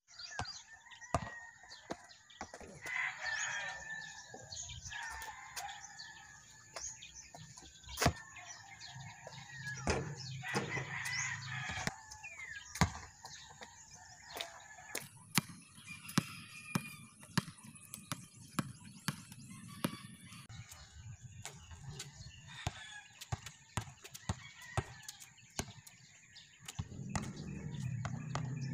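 A rooster crowing twice, with many sharp slaps of a basketball bouncing on a concrete court and hitting the rim. A low hum comes in near the end.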